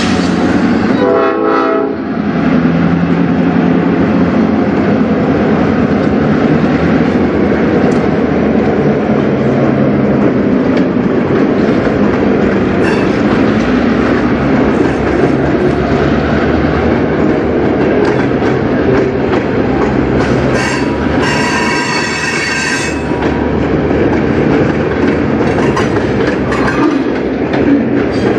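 CN diesel freight locomotives rumbling past, then tank cars rolling by with steady wheel clatter. A brief pitched tone sounds about a second in, and a high-pitched tone of about a second and a half comes about two-thirds of the way through.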